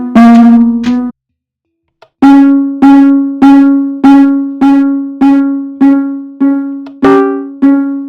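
Fire alarm chime sounding: one ding near the start, a gap of about a second, then a steady run of identical dings about every 0.6 s, each struck sharply and ringing away.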